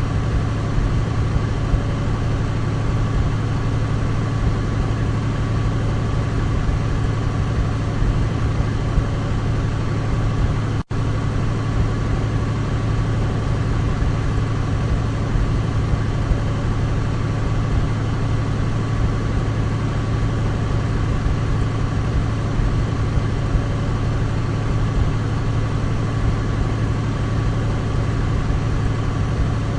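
Douglas DC-3's twin radial piston engines droning steadily at constant speed, a deep even hum with a faint higher tone above it. The sound cuts out for an instant about eleven seconds in.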